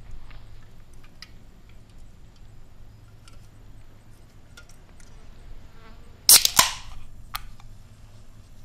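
A soda can's pull tab cracking open with a short hiss of fizz, about six seconds in: a sharp double crack followed by a brief hiss. Faint light clicks come before it, and a smaller click follows about a second later.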